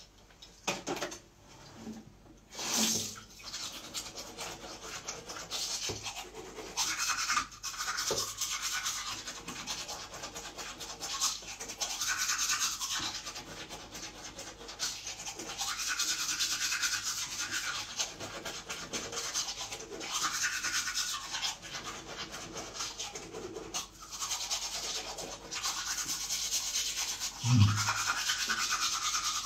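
Teeth being brushed with a toothbrush: a continuous scratchy scrubbing that swells and fades every few seconds. A short low sound near the end stands out above the brushing.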